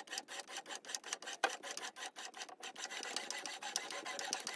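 Tap cutting an internal thread into a bronze valve guide: a rapid, even run of rasping clicks, several a second, as the tap's teeth shear the metal.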